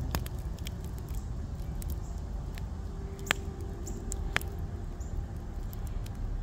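Wood fire in a fire pit crackling: scattered sharp pops, the strongest about three seconds in, over a low steady rumble.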